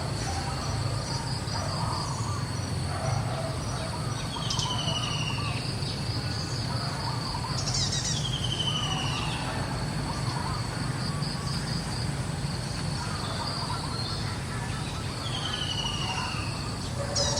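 Outdoor ambience: a steady high insect drone, with three short falling whistled bird calls at intervals and a steady low rumble beneath.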